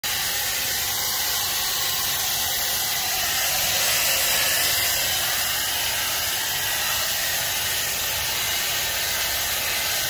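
POSEAG portable pet blow dryer with its brush head running, giving a steady airy hiss as it blows air into a wet dog's coat.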